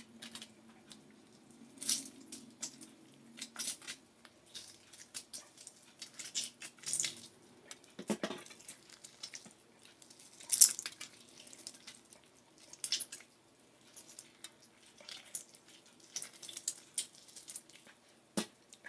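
Hand-squeezing a lemon over salmon on aluminium foil: scattered soft rustles, crinkles and small clicks, with one sharper rustle about eleven seconds in.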